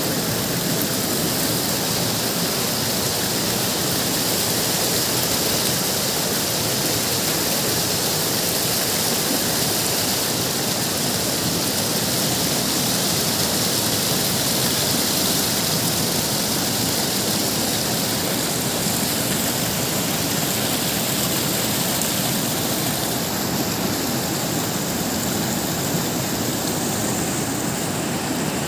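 River water rushing over and between boulders: a steady wash of white-water noise with no breaks.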